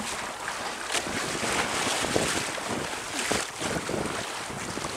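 Water rushing and splashing along the hull of a 1986 Mudhen 17 sailboat as its bow cuts through light chop under sail, with wind buffeting the microphone. The hiss swells and eases unevenly with each wave.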